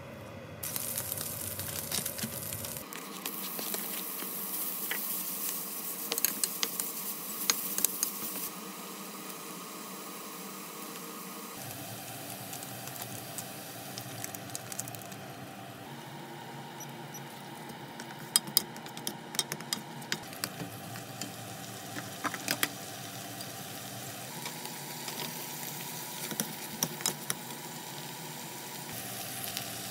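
Minced meat and garlic sizzling in oil in a non-stick frying pan, with a wooden spatula scraping and clicking against the pan. The sizzle changes abruptly several times, and short clicks cluster in the second half.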